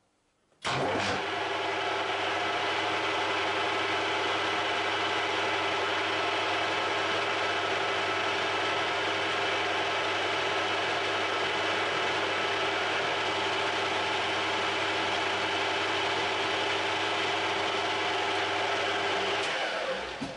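Harrison M300 lathe running under power with its geared headstock turning the four-jaw chuck while a centre drill is fed into the block: a steady whine of many even tones. It starts suddenly about a second in and winds down near the end.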